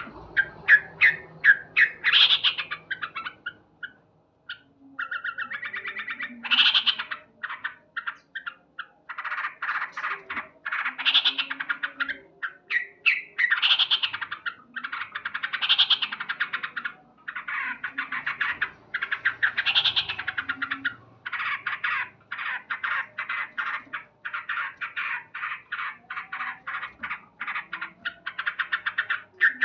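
Male sooty-headed bulbul (trucuk) calling loudly and persistently. Fast runs of short chattering notes are broken by louder phrases every few seconds, the full-voiced song of a bird in breeding condition.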